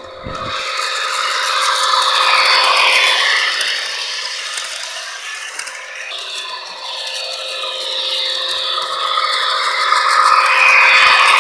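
Model train locomotive's motor and gearing running with a rattly, gear-driven whir. It grows louder as the engine passes close, fades, then grows louder again near the end.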